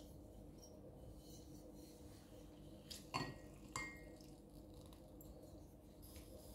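Two faint metallic clinks a little after three seconds in as a metal hand-held lemon squeezer is handled over a ceramic cup; otherwise near silence.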